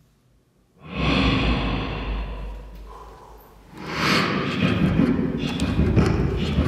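Human beatboxing. After a brief silence comes a long breathy bass sound that fades away, then from about four seconds in a fast rhythm of mouth clicks and hisses over a low beat.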